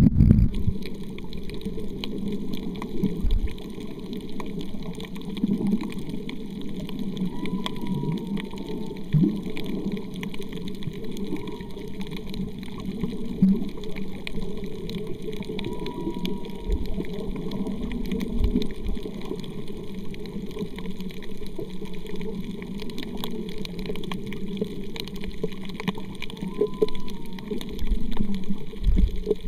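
Underwater sound on a submerged camera: a steady, muffled low water rush with scattered faint clicks. Four or five faint, short wavering tones come through it.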